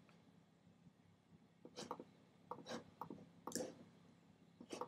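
Near silence broken by about half a dozen faint, short clicks, scattered from about two seconds in to near the end.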